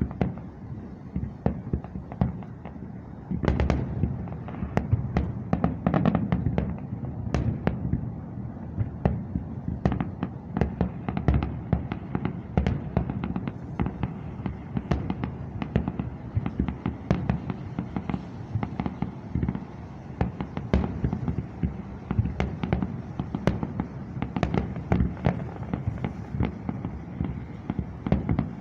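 Fireworks display: a continuous barrage of booms and sharp pops, several a second, growing louder about three seconds in.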